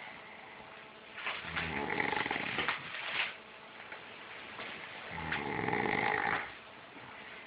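A sleeping pet snoring: two long snores about four seconds apart, the first about two seconds long, the second shorter.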